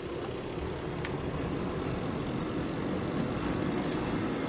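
Car moving at low speed: steady engine and road rumble.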